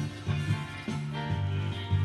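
Background music with a bass line of steady low notes.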